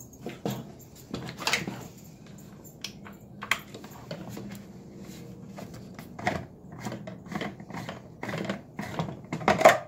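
Plastic pump-up garden sprayer being handled: irregular clicks and knocks as its tank, cap and pump handle are worked.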